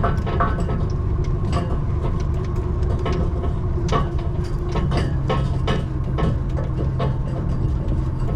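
A heavy engine running steadily, with frequent short knocks and clicks over it.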